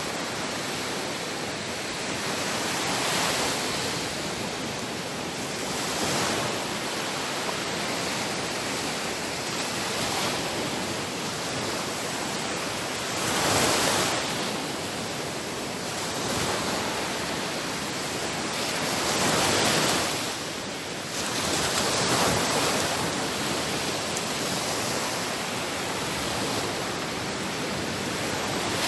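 Sea waves washing onto the shore: a continuous rush of surf that swells every few seconds as each wave breaks.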